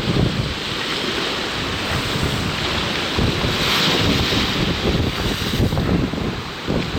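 Storm surf from a hurricane's approaching storm surge washing ashore, with strong wind buffeting the microphone. The wave noise swells briefly about halfway through.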